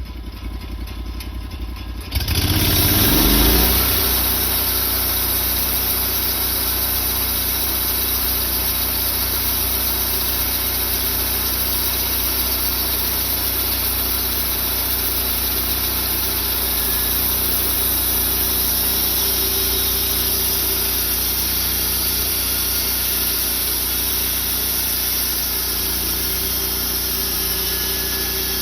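Portable sawmill's engine idling, then revving up about two seconds in and running steadily at full speed while the saw cuts through a cherry burl.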